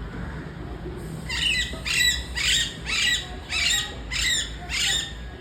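A parrot giving a run of about seven harsh squawking calls, roughly two a second.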